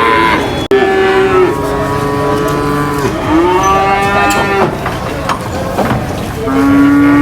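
Cattle mooing: several long, drawn-out moos one after another, with a brief drop-out in the sound under a second in.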